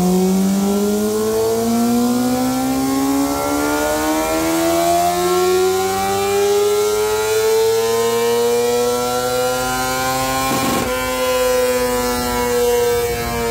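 2020 Yamaha R6's inline-four engine with an M4 slip-on exhaust, held under load on a dyno, revving up through a long pull. The engine note climbs steadily in pitch for about ten seconds. After a short break it levels off and then begins to fall away.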